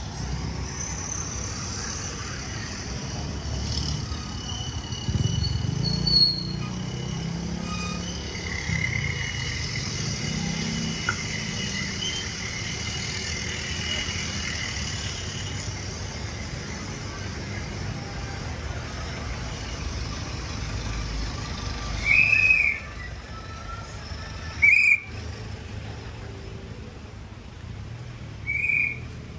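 Busy street traffic: jeepney, motorcycle and car engines running and passing in a steady rumble. Three short, loud, high-pitched whistle blasts come in the last several seconds.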